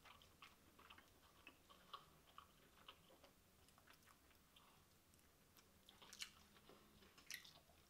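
Faint chewing of a mouthful of king crab with closed lips: soft wet mouth clicks and smacks, with a slightly louder click about six seconds in and another near the end.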